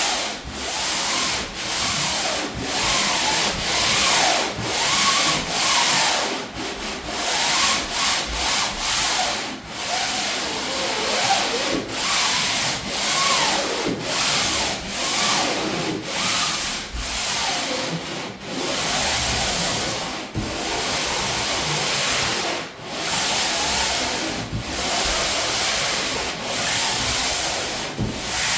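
Sandpaper rubbed by hand over painted plywood in a steady run of back-and-forth strokes, about one a second, with a squeaky scratch to each stroke. This is a light scuff sanding of the first coat of paint/primer, knocking down the raised wood grain before a second coat.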